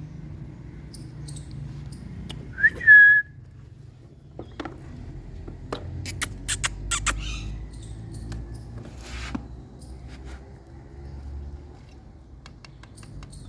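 An Indian ringneck parakeet gives one short whistle about three seconds in, over a low background hum. Scattered faint clicks follow.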